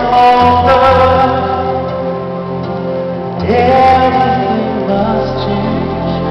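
Male singer singing live over band accompaniment, heard from the audience in a concert arena. Two long held phrases, each opening with an upward scoop, the second starting about three and a half seconds in.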